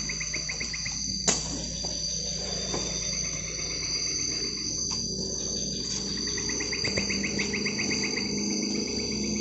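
Night insect chorus: crickets shrilling steadily at a high pitch, with a fast pulsing trill at the start and again from about two-thirds of the way through. A single sharp click about a second in.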